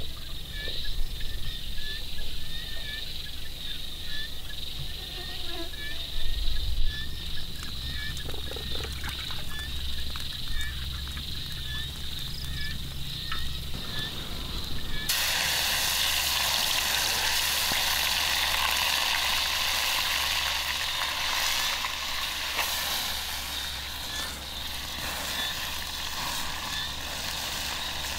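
Giant water bugs deep-frying in hot oil in a metal wok over a wood fire: a loud, steady sizzle starts suddenly about halfway in. Before it, faint repeated chirping and a few knocks.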